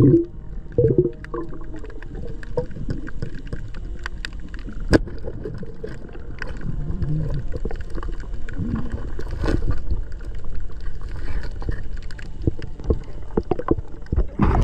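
Underwater ambience recorded beneath the sea surface: a low, muffled rumble of moving water with scattered sharp clicks and knocks, the loudest click about five seconds in.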